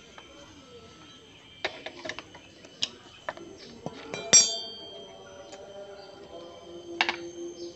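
Metal hand tools and loose bolts clinking and clattering against each other and the concrete floor, with scattered sharp clicks and one loud ringing clank about four and a half seconds in.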